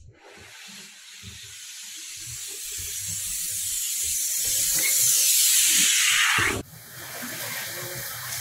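Large cardboard box sliding and scraping along a vinyl floor as it is pushed, a hissing scrape that grows steadily louder, with soft thumps under it. It cuts off suddenly about six and a half seconds in, leaving a quieter room sound.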